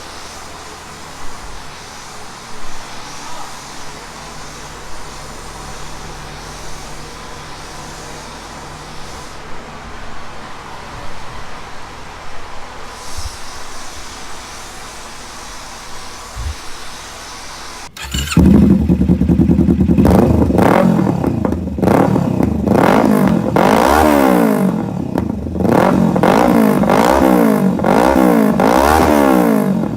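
Workshop background noise, then about two-thirds of the way in, a Kawasaki Z650's parallel-twin engine comes in suddenly and loud through an aftermarket Drift Xaust exhaust. It is revved again and again, the pitch rising and falling with each blip of the throttle: an exhaust sound check.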